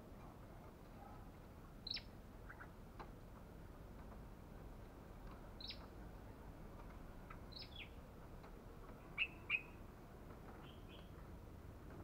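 Olive-backed tailorbird (Orthotomus sepium) giving short, sharp, high chirps, a few scattered seconds apart. The two loudest come in quick succession about three-quarters of the way through.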